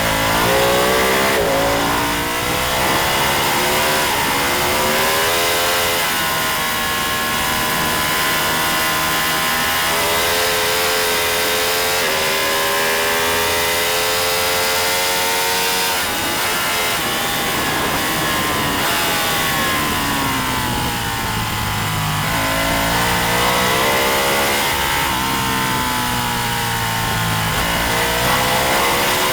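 Racing motorcycle engine under hard acceleration. Its pitch climbs, drops suddenly at each upshift and climbs again. About halfway through it falls away for several seconds as the bike slows, then rises again as it accelerates back up through the gears.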